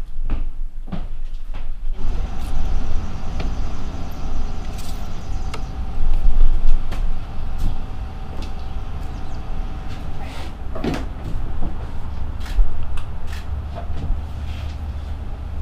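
Footsteps, knocks and clatters of shed doors and items on a workbench being handled, over a steady low rumble that starts about two seconds in.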